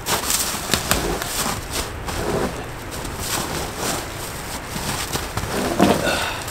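Irregular crunching and scuffing of boots in snow and dry leaf litter, with rough scrapes and knocks as a heavy dead log is shoved and shifted against a rock.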